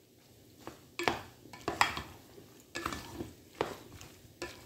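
Plastic spatula stirring macaroni and chicken in a metal pot, scraping and knocking against the pot's sides and bottom about once a second.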